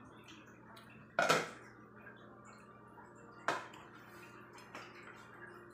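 Stainless steel bowl and ladle clinking as soup is served: two sharp clinks with a short ring, about a second in and again about three and a half seconds in, with a few lighter taps between.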